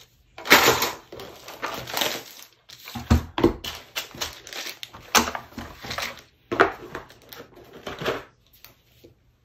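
Handling noise of plastic miniature sprues, a bagged set of parts and card decks being packed into a cardboard board-game box: irregular crinkling, rustling and light clacks.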